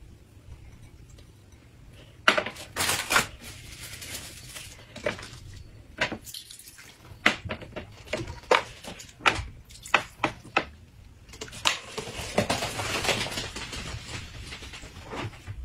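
Clinks, knocks and clatter of dishes, utensils and food containers being handled at a table, starting about two seconds in, with a few seconds of steady rustling noise near the end.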